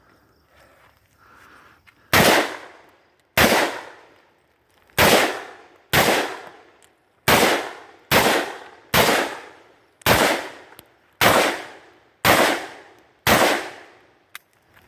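Rifle firing steel-cased ammunition: eleven shots at a steady pace of about one a second, starting about two seconds in, each shot trailing off in a short echo.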